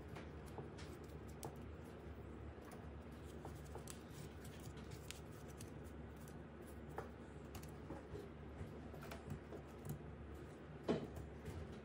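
Scattered light clicks and taps of hands working with small objects, irregular rather than rhythmic, with one sharper click near the end, over a low steady hum.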